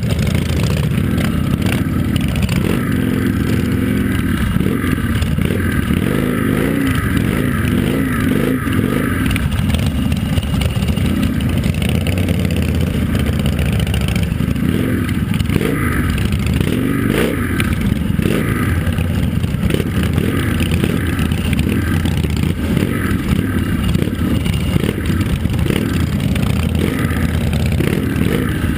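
Motorcycle engine running loud and close, its pitch rising and falling with throttle blips as the bike moves at walking pace.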